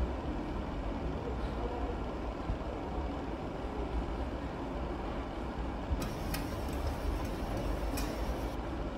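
Steady low mechanical rumble of kitchen background noise. From about six seconds in, for a couple of seconds, there are short crisp scraping clicks from a small paring knife peeling a vegetable over a steel bowl.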